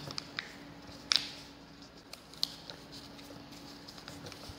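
Sheet of origami paper crinkling and rustling as it is folded and tucked by hand, in a few short crackles, the loudest about a second in. A faint steady hum runs underneath.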